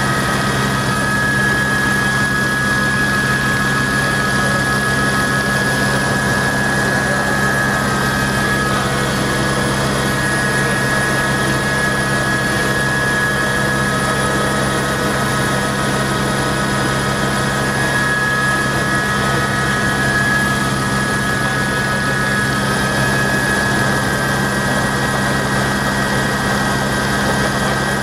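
Helicopter running steadily: an even, unbroken rotor and engine noise with a low hum and a high whine that do not change.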